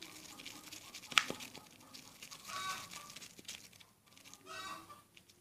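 Thick, foamy clay-and-soap slime being stirred in a container, with faint sticky crackling and tearing squelches, and one sharp tap about a second in.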